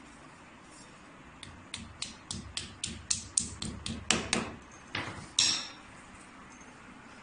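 A hammer tapping plastic wall plugs into holes drilled in a masonry wall: about fifteen sharp knocks, roughly three or four a second, ending with a louder blow.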